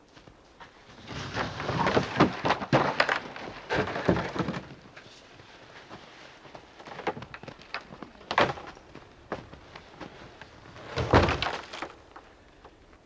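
Groups of knocks, thumps and clatters, with a louder cluster of thuds near the end.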